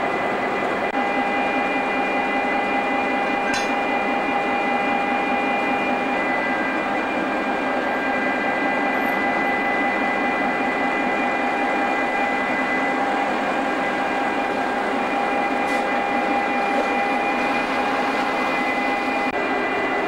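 Large engine-driven machinery running steadily, a constant mechanical hum with several high whining tones held over it.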